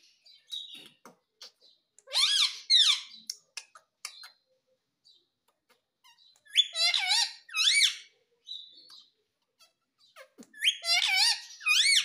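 A rose-ringed parakeet (Indian ringneck) calling in three high-pitched bouts, each a second or so long and swooping rapidly up and down in pitch, about two, seven and eleven seconds in. Faint ticks come between the bouts.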